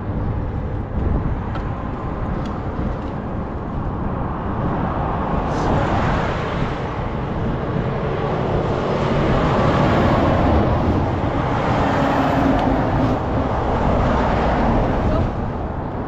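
A road vehicle passing: its noise swells for several seconds, peaks in the middle and fades near the end, over a steady low rumble of wind on the microphone.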